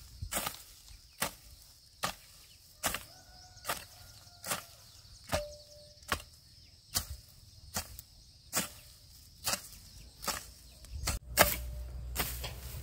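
Steady rhythmic chopping, one sharp strike about every 0.8 seconds, with a steady high hum behind it. A low rumble comes in near the end.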